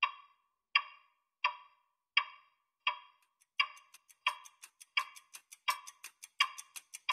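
Clock-like ticking, one sharp ringing tick about every 0.7 seconds, laid as the opening of a soundtrack. About three seconds in, a faster, brighter ticking joins in between the main beats.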